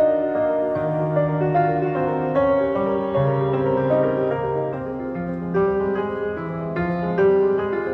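Solo piano music played back through a portable Bluetooth speaker and picked up by a microphone: a melody of short notes over held bass notes.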